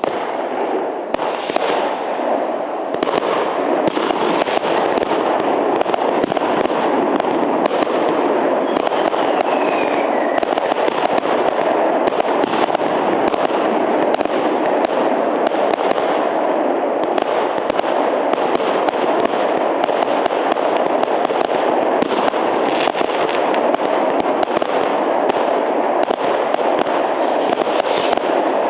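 Silvester fireworks: a dense, continuous barrage of crackling bangs and pops from many firecrackers and rockets going off at once. It sets in suddenly at the start and keeps up at a steady, loud level.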